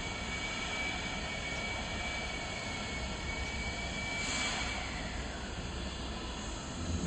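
Steady rushing hum of machinery with a thin, high, steady whine, and a brief hiss about four seconds in.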